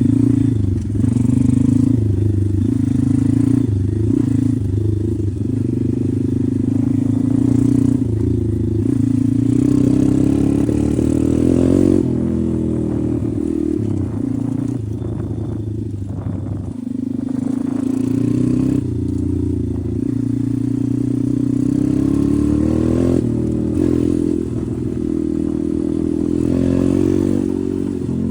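Regulmoto Seven pit bike's engine running while being ridden, its revs repeatedly rising and falling as the throttle is worked and gears change.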